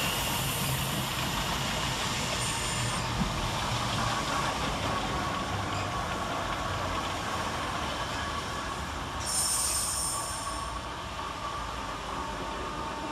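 Class 465/466 Networker electric multiple unit running into the platform and slowing as it arrives. The running noise slowly fades, with two brief high-pitched sounds, one about two and a half seconds in and a louder one about nine seconds in.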